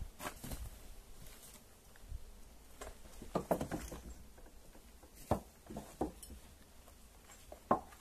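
Scattered, irregular light knocks and clicks of footsteps and saddle gear being handled, with a few sharper knocks a little after three seconds in, around five and six seconds, and near the end.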